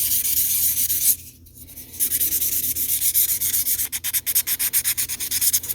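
A three-way buffer block rubbed by hand over a small metal typewriter part, a dry, hissing scrub of quick back-and-forth strokes. It stops for about a second just after the start, then goes on with rapid, evenly repeated strokes.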